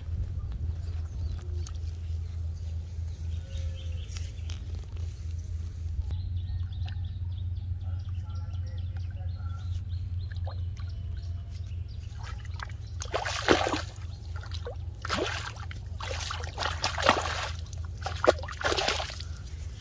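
A large hooked fish thrashing and splashing in shallow water at the bank, a run of loud splashes starting about two-thirds of the way in, over a steady low hum.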